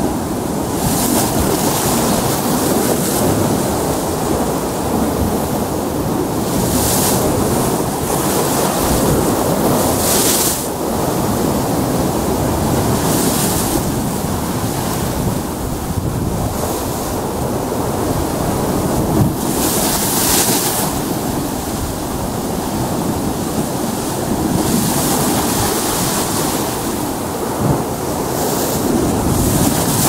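Rough sea surf washing in and breaking against rocks: a constant rushing, with louder splashes and spray hissing every few seconds, the biggest about two-thirds of the way through and at the end. Wind buffets the microphone underneath.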